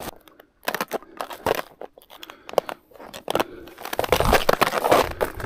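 Snowshoes crunching in snow in uneven steps, coming thicker and louder in the second half.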